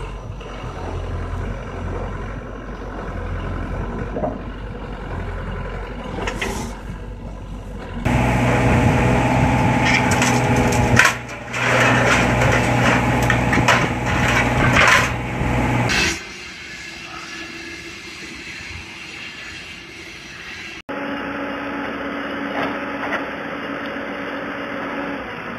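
Excavator diesel engines running under hydraulic load as grab attachments work, in several abrupt scene changes. The loudest stretch, in the middle, is dense crunching, cracking and scraping of metal as a car-dismantling grab tears into a scrapped car over the engine.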